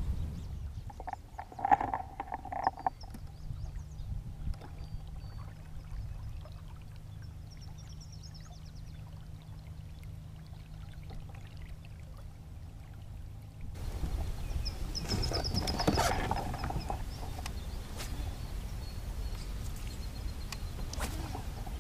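Water washing against a fishing kayak as it moves over calm water, with birds chirping. A faint steady hum runs through the middle part, and the water noise grows louder about fourteen seconds in.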